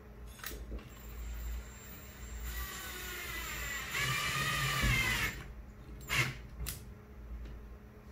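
Ryobi cordless drill driving a black screw into the wall. The motor runs for about three seconds, its pitch shifting as the screw bites and getting louder near the end, then two short clicks follow.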